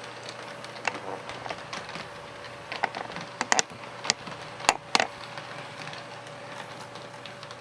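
Model train running in reverse on the layout track with its sound system off: a steady hum under sharp, irregular clicks, most of them bunched around the middle.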